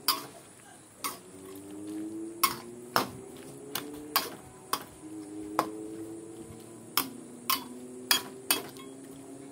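Metal spatula knocking and scraping against a steel wok while stirring a simmering chicken and vegetable soup: about a dozen sharp clinks at irregular intervals.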